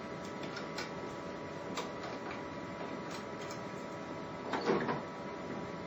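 Light plastic clicks and a short rattling clatter about three-quarters of the way through, as the heated roller assembly is handled and removed from a Zebra ZXP Series 8 card printer's laminator. Under it is the printer's steady hum.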